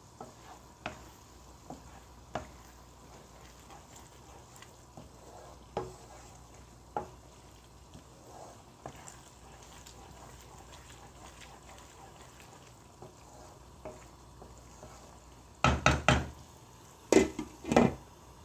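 A spatula stirring thick keema sauce in a metal wok, with light scrapes and scattered knocks against the pan, over a faint bubbling simmer. Near the end come two bursts of loud clatter as the glass lid is put back onto the pan.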